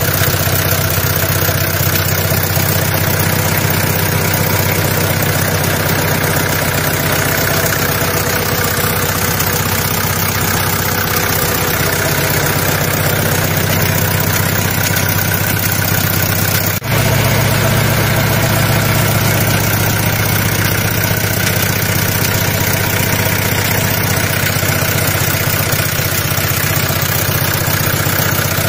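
Daihatsu Taft engine idling steadily, heard close up in the open engine bay. It dips for a moment about two-thirds of the way through, and its low hum is a little stronger after that.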